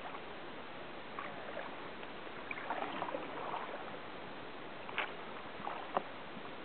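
Kayak paddling: short splashes and drips of the paddle blades in calm water over a steady hiss, with two sharp knocks near the end.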